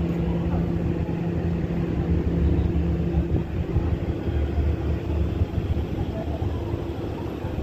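Outdoor city street ambience: a steady low rumble with a faint engine-like hum, the lower hum dropping out about halfway through, and voices in the background.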